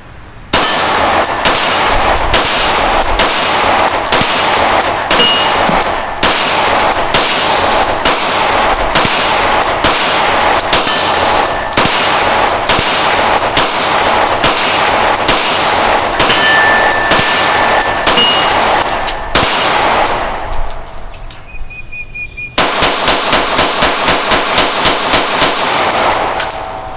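Springfield Armory 1911 DS Prodigy 9mm pistol firing a long string of shots at a steady pace of nearly two a second. After a short pause comes a faster string of about five shots a second.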